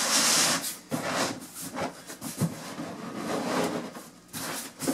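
Congoleum sheet vinyl flooring rustling and scraping as the roll is pushed and pulled across the floor, with a loud scraping rustle at the start, then softer rustles and a couple of dull knocks.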